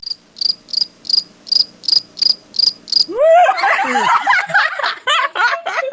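Cricket chirps, a sound effect dropped in after an unanswered question: about nine short, high, evenly spaced chirps, roughly three a second. About three seconds in they give way to loud, high, wavering vocal sounds.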